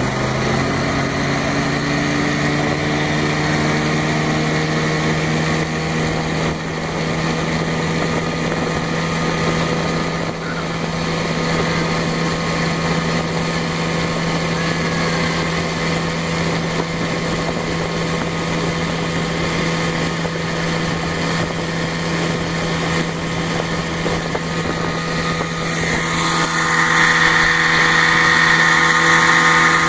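Two small boat engines racing at full throttle: a 1961 Johnson Seahorse 10 hp two-stroke outboard close by and a 23 hp Briggs & Stratton Vanguard mud motor alongside, with water rushing past the hulls. The engine pitch climbs as they accelerate off the start, then holds steady, and the sound grows louder and brighter for the last few seconds.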